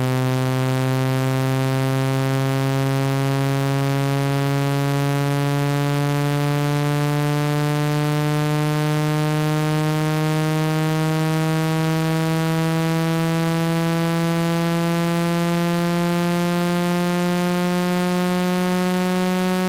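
Synthetic speaker-cleaning tone for ejecting water and dust from a phone speaker: a loud, buzzy low tone whose pitch rises slowly and steadily.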